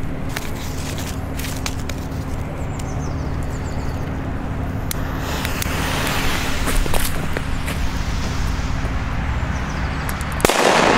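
A jet-flame lighter hisses at the fuses of two Katan Super 2 firecrackers. Near the end the first firecracker explodes with a single loud bang.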